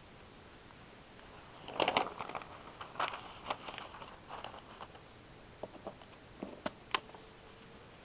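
Paper coupon insert pages rustling and crackling as they are handled and turned: a cluster of rustles about two seconds in lasting a few seconds, then a few single sharp crackles near the end.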